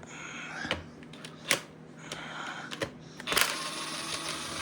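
Metal tools and parts clicking and clinking against the Eaton hydrostatic transmission while bolts are being removed: a few separate sharp clicks, then a longer stretch of rapid rattling and scraping starting a little after three seconds in.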